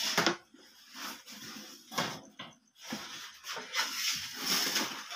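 Metal baking tray of pandesal scraping and sliding on a wooden peel into a deck oven, with a few knocks of metal on wood and a longer scrape near the end.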